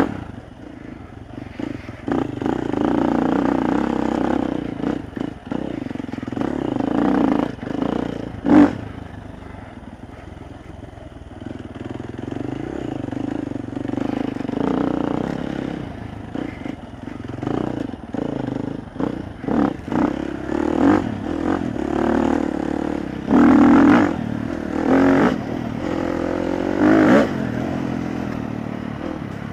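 Off-road dirt bike engine under way, its pitch rising and falling as the throttle is opened and closed over rough ground, with several sharp knocks from the bike, the loudest about a third of the way in.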